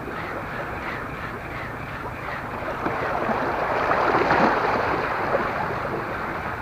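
Small sea waves washing in over shoreline rocks and pebbles, swelling about three seconds in and then easing off.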